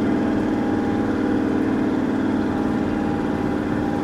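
Toyota pickup's diesel engine running steadily at a low, even speed, heard from inside the cabin.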